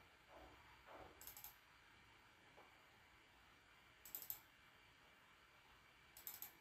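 Faint computer mouse clicks in three short clusters of a few clicks each, about a second, four seconds and six seconds in, over near silence.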